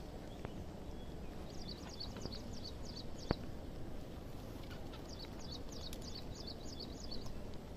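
A bird calling in two rapid runs of short, high chirps over a steady outdoor hiss, with a single sharp click a little past three seconds in.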